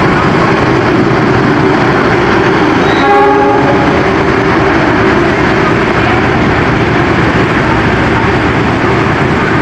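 Argo Sindoro passenger train rolling along the platform track, with a steady rumble of wheels and locomotive throughout. The locomotive horn sounds one short blast about three seconds in.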